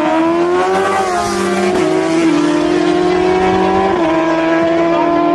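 Sport motorcycle engines running at high revs, held at a steady high pitch. There is a short rise in pitch in the first second and sudden small drops about two and four seconds in.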